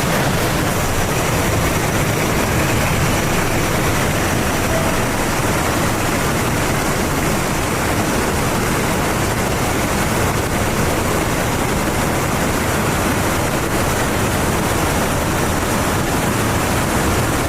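Loud, steady rushing noise with no pitch or rhythm, unchanging throughout.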